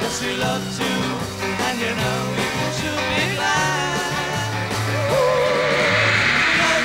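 Early-1960s beat-group rock and roll played on electric guitars, electric bass and drum kit. Singing comes in partway through, ending on a held, wavering note over a wash of cymbals.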